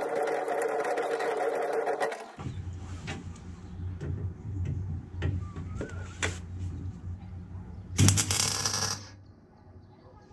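A small power tool's motor whines steadily, then cuts off about two seconds in, giving way to a low steady hum with scattered clicks. Near the end a welding arc crackles loudly for about a second as a tack weld is struck.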